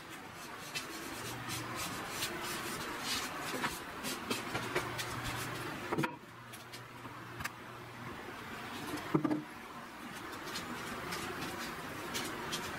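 Wood being handled at a workbench: steady rubbing and scraping with a few sharp knocks, the loudest about six and nine seconds in, as the boards of a wooden step stool are moved and set in place.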